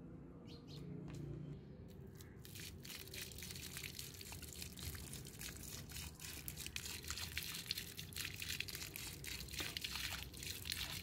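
Water poured from a plastic bottle over a metal wrench, splashing and spattering onto concrete and grit in a steady crackly stream from about two and a half seconds in. Before that, a few drips fall back into a tub of liquid.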